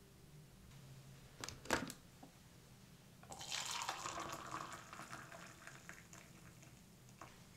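A sharp knock of the kettle being handled, then water poured from a kettle into a ceramic mug, a steady pouring splash that starts about three seconds in and fades out over the next few seconds.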